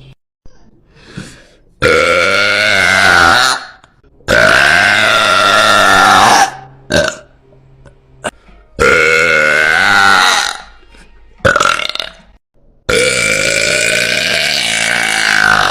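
A woman belching very loudly: four long, drawn-out burps of about two seconds each, with short pauses between.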